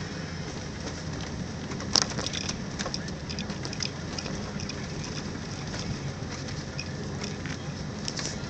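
Vehicle driving through deep fresh snow: a steady low engine and road rumble with a fine crackling patter of the tyres crunching the snow, and one sharp click about two seconds in.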